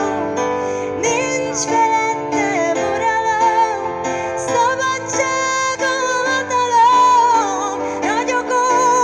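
A woman singing a pop ballad melody live into a microphone, accompanied by a Nord stage piano, both amplified through a PA.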